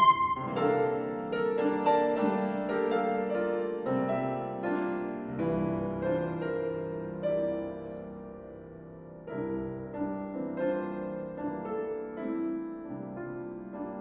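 Grand piano playing a solo passage of a saxophone concerto's piano accompaniment, with a loud held alto saxophone note cutting off right at the start. The piano grows softer past the middle and picks up again about nine seconds in.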